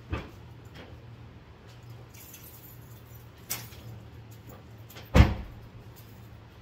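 A few light knocks and clicks, then one heavy thump about five seconds in, typical of a car door being shut, over a steady low hum.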